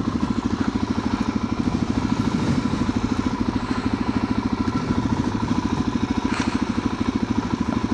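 Motorcycle engine running at a steady, even, rapid beat.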